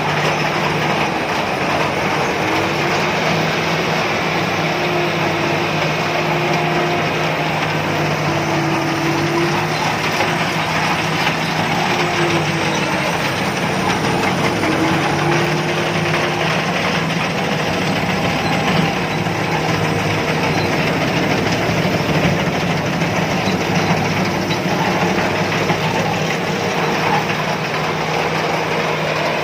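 Combine harvester running steadily: a loud, even machine noise with a constant low hum and no pauses.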